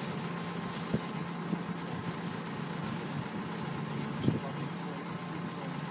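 Engine of a self-propelled field machine running steadily as it moves along the crop rows, with two brief knocks, about one second and about four seconds in, the second the louder.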